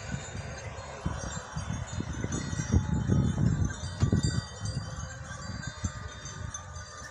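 Many small bells on a grazing flock of sheep and goats tinkling continuously. Under them is an uneven low rumble of wind on the microphone, strongest in the middle.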